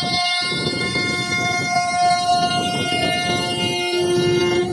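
CNC router spindle whining at a steady high pitch as its bit cuts a profile into a wooden door panel, with the rough noise of the cutting underneath.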